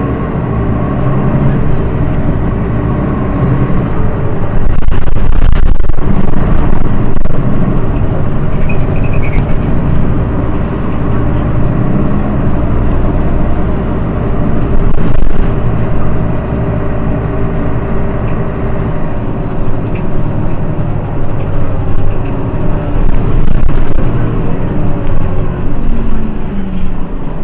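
Diesel engine of a Mercedes-Benz Citaro city bus running, getting louder over the first five seconds or so and then running on with its pitch rising and falling.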